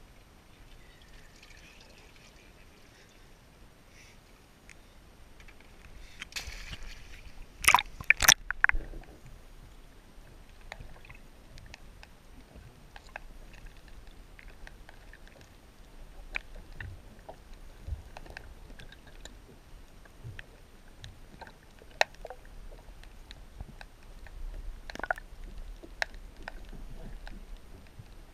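Water splashing and sloshing, with a few loud sharp knocks about eight seconds in, as a landing net and the camera go into the water; then muffled, scattered clicks and knocks heard underwater.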